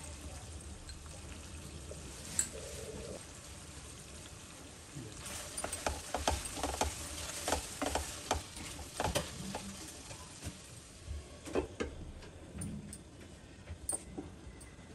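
Chicken curry sizzling in a non-stick kadai, with a spatula stirring and scraping through it in a busy run of clicks and scrapes from about five seconds in to about twelve seconds.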